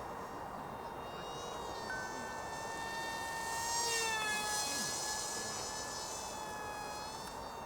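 Eachine mini F-22 Raptor RC jet's small one-cell brushless pusher motor and propeller whining high in flight, the pitch shifting up and down with the throttle. It grows louder about four seconds in, and the pitch falls just after.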